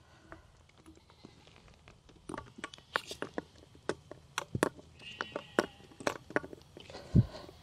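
Half-inch flexible polyethylene sprinkler pipe being twisted and pushed onto a barbed plastic fitting: a run of small clicks and creaks, with a short squeak about five seconds in and a low thump near the end.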